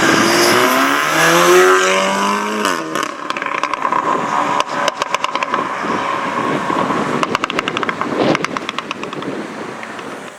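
Stage 3 tuned VW Golf R 7.5's turbocharged 2.0-litre four-cylinder with a decat Milltek downpipe accelerating hard, pitch rising for nearly three seconds. Then it lifts off into a long run of exhaust crackles and pops on the overrun, fading away near the end.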